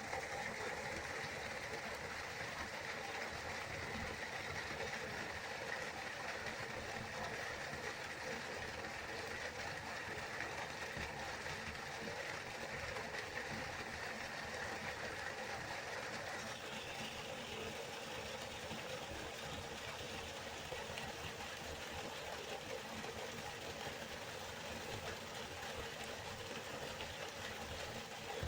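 River water flowing steadily, an even rushing sound, with a slight shift in tone a little past halfway.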